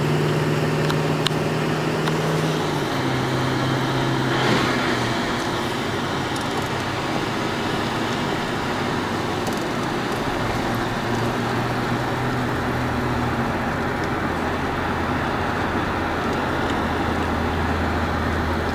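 Car engine and tyre noise from inside a moving vehicle, a steady hum with road rush, the engine note stepping down about three seconds in.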